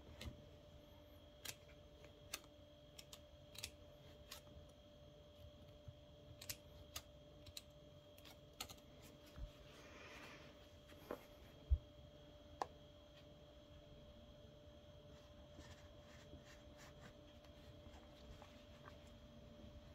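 Mostly quiet, with scattered small clicks and taps from scissors and a silicone glue stick being handled while working the stuffed, crocheted doll. A louder single knock comes about twelve seconds in, and the clicks die away after that.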